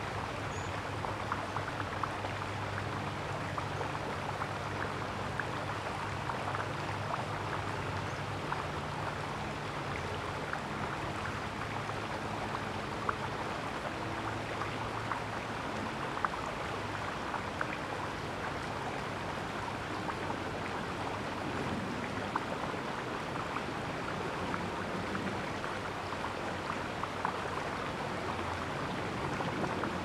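Steady outdoor background hiss sprinkled with many faint ticks, with a low steady hum underneath that fades out about halfway through.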